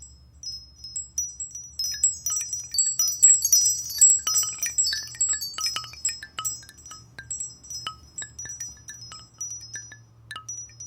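A MigeMax Ck23 phone ringtone of high tinkling chime notes, like a wind chime. Scattered pings build up over the first few seconds and then thin out, over a faint low hum.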